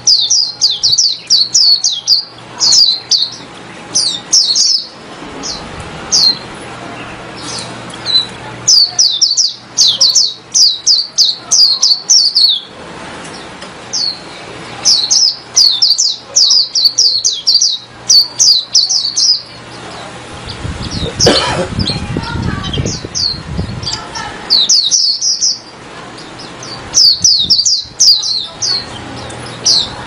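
Caged white-eye (pleci) singing loud: bursts of rapid, high twittering notes, each burst one to four seconds long with short pauses between. About two-thirds of the way in, a low rumble lasting a few seconds sounds under the song.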